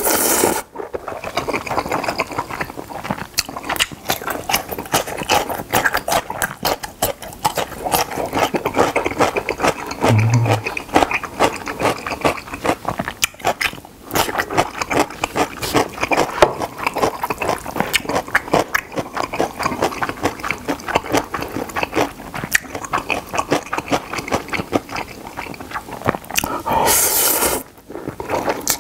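Close-miked eating of Jjapaghetti instant black-bean noodles. A loud slurp of noodles comes at the start and another near the end, with continuous wet chewing and lip-smacking clicks in between.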